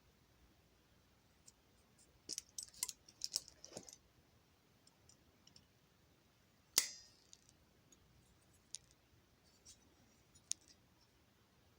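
Light clicks and rattles of small metal parts being handled: a steel headlight-retainer tab being repositioned on the ring and clamped with locking pliers. A busy patch of clinks about two to four seconds in, then one sharper metal click with a brief ring about seven seconds in, and a few faint ticks after.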